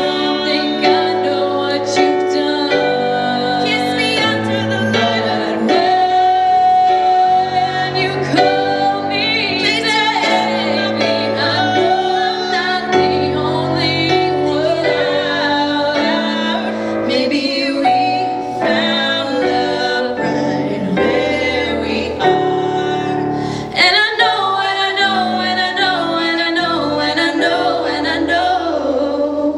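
Two female voices singing a duet, accompanied by chords on a Roland digital piano.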